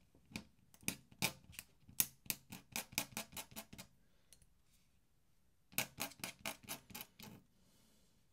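Metal dip-pen nib tapping and scratching on paper in quick short strokes, a run of faint clicks about four or five a second, pausing for a couple of seconds midway and then starting again.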